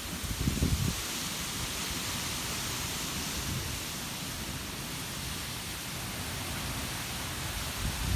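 Wind blowing in a steady hiss, with low rumbling gusts buffeting the microphone in the first second before it settles.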